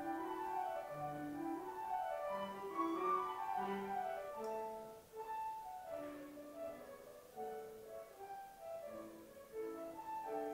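Soft instrumental background music: a slow melody of held notes over lower bass notes.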